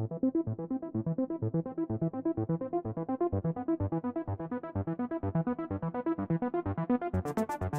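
Electronic background music: a keyboard-synth line of quick, evenly repeated notes, with a crisp hi-hat-like beat coming in near the end.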